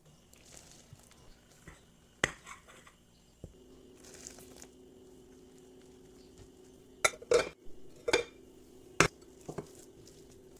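Kitchen utensils and dishes clinking and knocking: a few scattered sharp knocks, with a cluster of them near the end. A faint steady hum comes in about a third of the way through.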